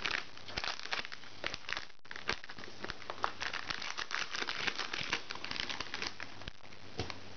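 Plastic snack packaging crinkling as it is opened, a dense run of small sharp crackles with a brief break about two seconds in.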